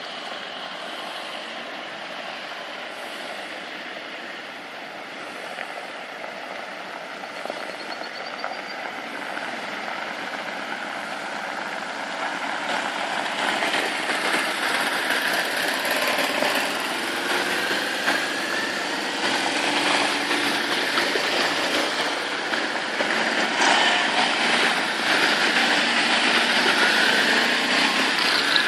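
Engines of a line of quads (ATVs) riding past one after another on gravel, a dense mix of motors with a few passing revs, growing steadily louder as the column comes closer.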